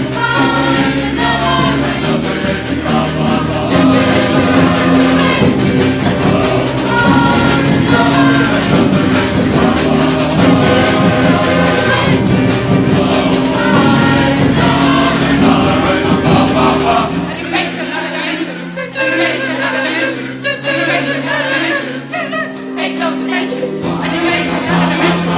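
A large choir sings with a percussion band drumming along. About seventeen seconds in, the drums drop out and the voices carry on alone; the drums come back near the end.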